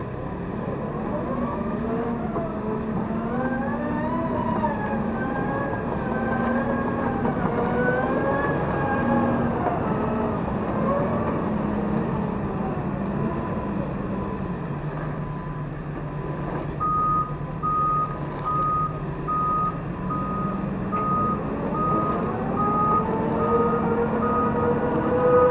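Diesel engines of wheeled excavators running, the pitch rising and falling as the engine works under hydraulic load, then settling lower. From about two-thirds of the way in, a travel or reversing alarm beeps steadily, just under two beeps a second, and an engine revs up near the end.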